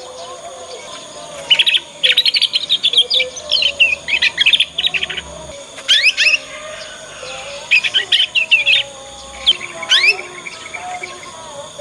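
Young canary practising its song: bursts of rapid, high chirps and quick upward sweeps, a long run of twittering followed by shorter phrases and single rising notes. It is the unfinished 'ngriwik' twitter of a juvenile canary still learning to sing.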